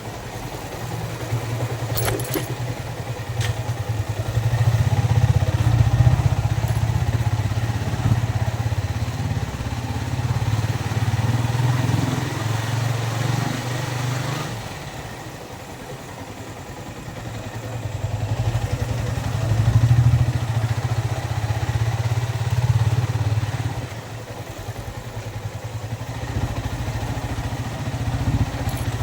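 Yamaha Vixion motorcycle's single-cylinder four-stroke engine running on the road, heard from the rider's seat with wind noise; the engine note rises and falls as the throttle is opened and eased off, quieter for a few seconds in the middle. A couple of sharp clicks sound about two seconds in.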